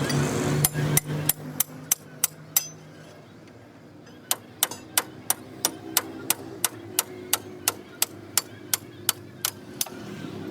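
A hammer striking metal in steady, even blows, about three a second. There is a brief pause a little over two and a half seconds in, and then a longer run of blows follows.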